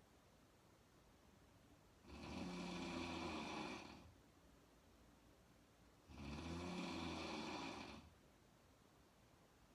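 A woman snoring in her sleep: two long snores, each lasting about two seconds, one every four seconds, with quiet breathing pauses between.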